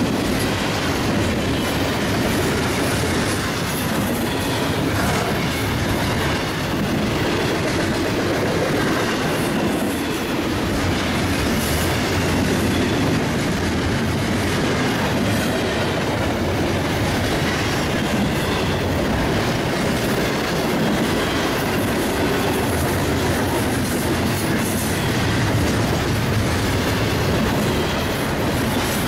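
Double-stack intermodal freight train rolling past, the steady noise of its cars' wheels running on the rails.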